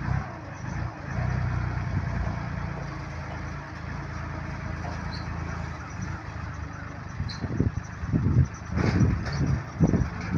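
Front-loader farm tractor's engine running steadily at work. In the last few seconds it gives way to uneven, louder surges with a few sharp knocks.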